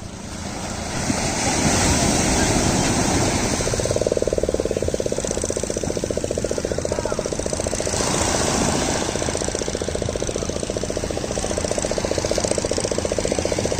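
An engine running with a fast, even chugging beat, with a steady hiss of surf or wind behind it.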